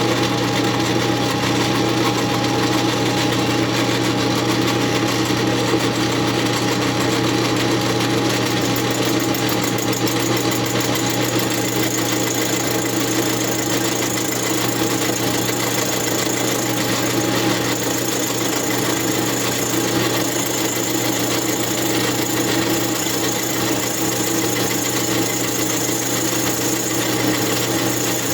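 Metal lathe running steadily while facing the base of an Echo CS8000 chainsaw cylinder, taking about ten thousandths of an inch per pass. A high, thin whine joins about twelve seconds in.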